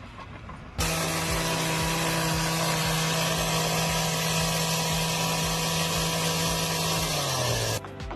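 Excavator's engine and hydraulics running hard with a loud steady hum that starts abruptly about a second in. The pitch drops slightly near the end, and then the sound cuts off suddenly.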